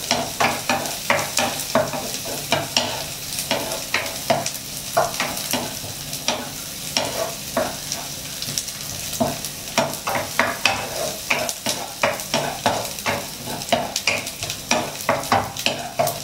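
Wooden spatula stirring dried shrimp in a speckled non-stick wok, with quick repeated scrapes and knocks against the pan. Under them the shrimp sizzle in a tablespoon of oil as they toast.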